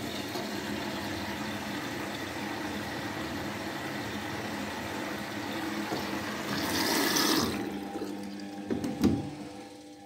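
Water rushing through an Indesit front-loading washing machine. It starts suddenly as a steady rush, gets louder and hissier about seven seconds in, and a few sharp knocks come near the end.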